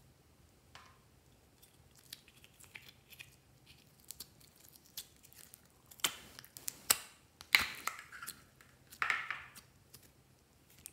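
Thick clear slime peeling and sliding out of a small plastic container, with sticky crackling and popping. Scattered faint clicks come first, then three louder clusters of crackling from about six seconds in.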